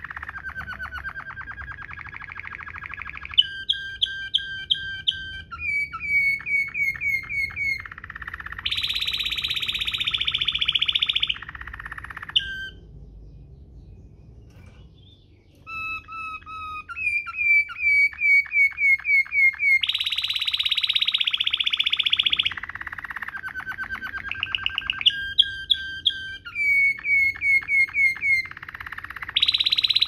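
Domestic canary singing a rolling song in the Waterslager style: a run of phrases, each a fast trill or a string of rapidly repeated notes, broken by a pause of about three seconds midway.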